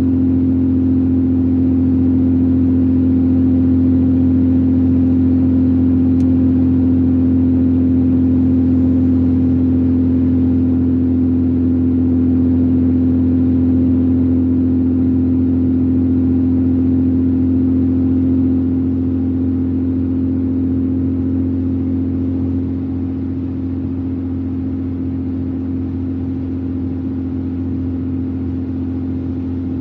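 Steady drone of a car at highway speed heard from inside the cabin, engine and tyre hum blended into one even tone. It gets a little quieter in two steps about two-thirds of the way through.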